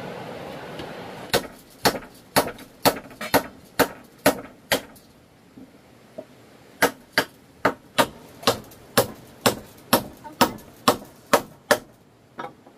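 A hand tool striking wood or bamboo in steady blows, about two a second: eight blows, a pause of about two seconds, then a run of about eleven more and a last one near the end. A steady rushing noise fades out in the first second.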